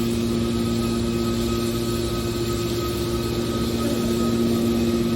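Hydraulic metal baler's motor and pump running steadily: a constant hum with a steady whine.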